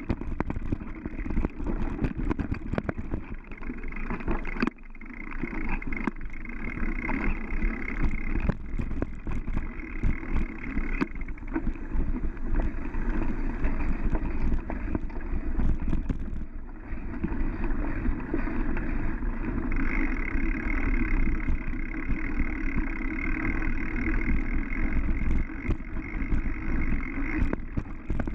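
Mountain bike ridden over a dirt forest trail: a steady rush of wind and tyre noise with a deep rumble, broken by frequent rattles and knocks as the bike jolts over bumps.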